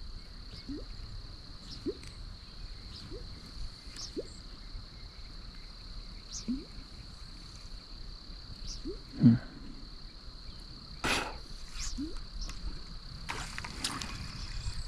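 A popper lure worked across a pond's surface: short soft water bloops every second or two, with a louder gulp about nine seconds in and a sharp hit about two seconds later. A steady, high insect drone runs behind it.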